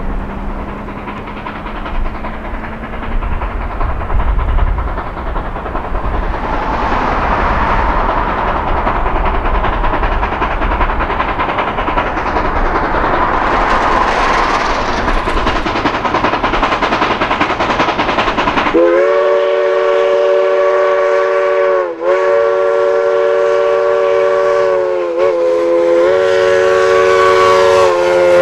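A train running with a steady rumble and hiss, then a steam locomotive's chime whistle blowing three long blasts with only short breaks between them, starting about two-thirds of the way in.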